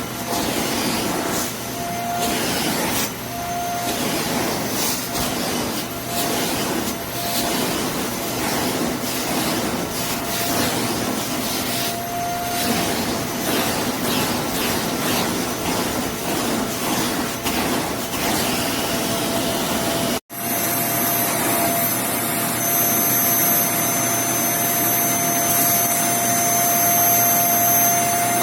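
Bissell Zing bagless canister vacuum cleaner running, its suction rising and falling with a faint, intermittent whine. About two-thirds through the sound cuts out for an instant, then the vacuum runs steadier and slightly louder with a constant whine.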